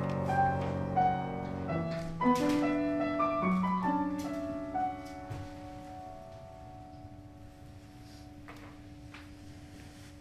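Piano playing a slow passage: notes struck and left to ring in the first half, then a few held notes dying away. A couple of faint knocks come near the end.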